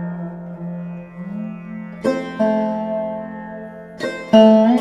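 Background instrumental music on a plucked string instrument: a few plucked notes that ring on long, with a slow bend up in pitch between them.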